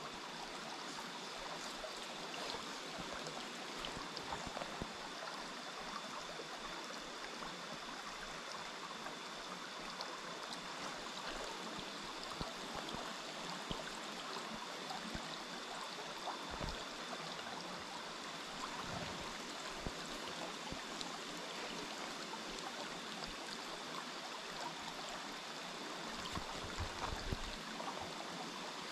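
A small rocky pocket-water stream running steadily over stones, a constant rush of flowing water, with a few soft low bumps around the middle and near the end.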